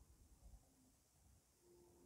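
Near silence: quiet room tone with a few faint low thuds, the strongest about half a second in.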